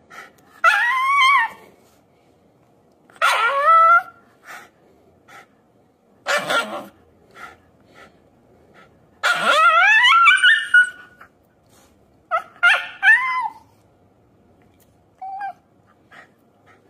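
Shiba Inu screaming in protest while its nails are clipped: about six high-pitched cries a few seconds apart, each rising then falling in pitch, the longest about a second and a half near the middle and the last one short and faint.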